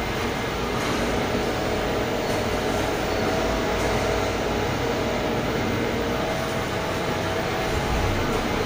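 Steady whir of a Deye hybrid solar inverter's cooling fans running, with a steady electrical hum under it.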